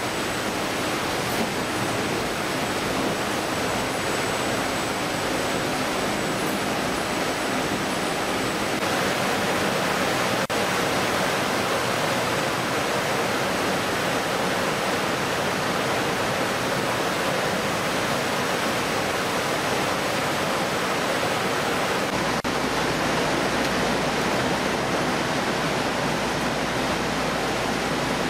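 Steady din of a fish-processing line: machinery running and water spraying and flowing, with a thin steady high whine.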